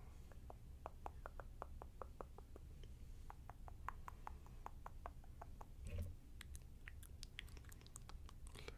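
A run of soft, sharp clicks close to the microphone, irregular at several a second, with one dull thump about six seconds in.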